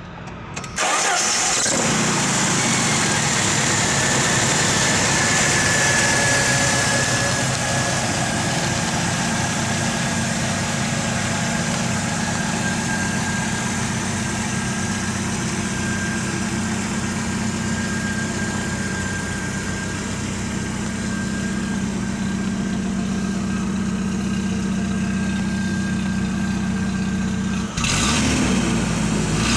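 1994 Jeep Wrangler YJ's 2.5-litre four-cylinder engine starting about a second in, then idling steadily with a faint high whine. Near the end the idle is heard from behind the Jeep, at the tailpipe.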